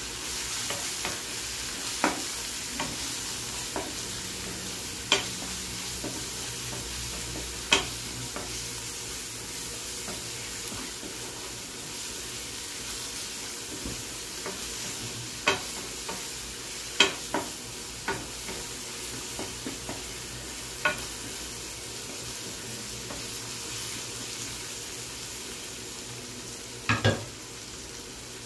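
Onion, tomato and spice masala sizzling steadily in oil in a nonstick frying pan, stirred with a wooden spatula that scrapes and knocks sharply against the pan now and then, loudest in a pair of knocks near the end.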